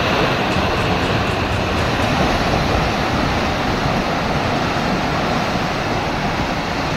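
Landslide: rock and earth pouring down a steep hillside in a steady, heavy rumble.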